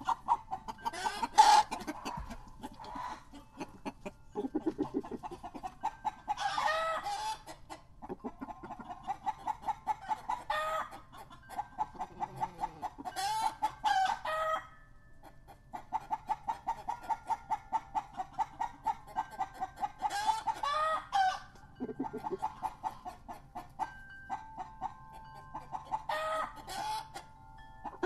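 Barred Rock chickens: a steady run of fast, repeated clucking, broken every few seconds by a louder rooster crow, about five crows in all.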